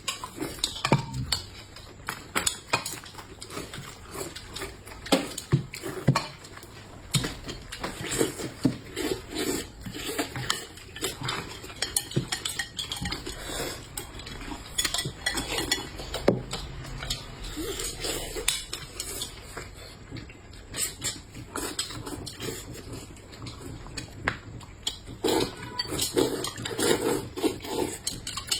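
Eating utensils clinking and tapping against bowls and plates during a meal, in many irregular small clicks.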